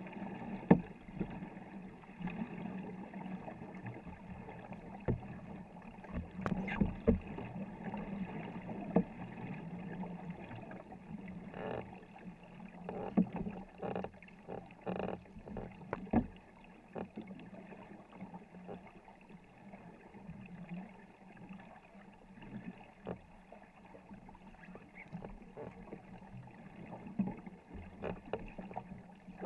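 A 24-foot wooden war canoe being paddled hard by its crew: water rushing and splashing along the hull, with irregular knocks and splashes from the paddle strokes.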